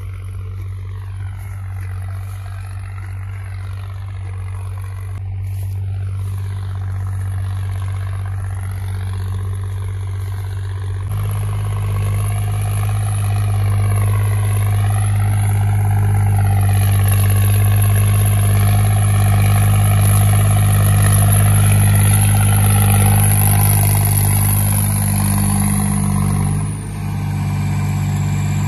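John Deere 5310 tractor's diesel engine running steadily under load, pulling a reversible mouldboard plough through the field. The engine gets louder after a cut about eleven seconds in and drops briefly near the end.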